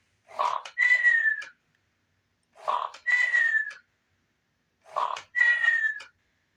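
Squawkers McCaw animatronic toy parrot making its sleeping snore-and-whistle sound through its speaker after being told good night. It goes three times, evenly spaced, each a short noisy breath followed by a whistle that falls slightly in pitch.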